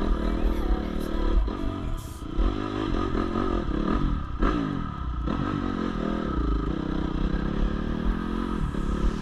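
Dirt bike engine being ridden over a rough trail, the revs rising and falling repeatedly with brief throttle-offs. Clatter and knocks come from the bike over stones and ruts.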